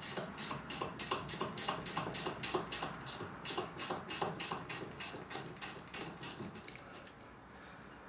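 A ratchet clicking in quick even strokes, about four a second, undoing a 10 mm bolt on a steering rack's pinion housing; the clicking stops about seven seconds in.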